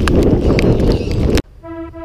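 Heavy rain on a chest-mounted GoPro, a loud steady hiss with scattered sharp taps of drops. About a second and a half in it cuts off suddenly and background music with a repeating keyboard pattern begins.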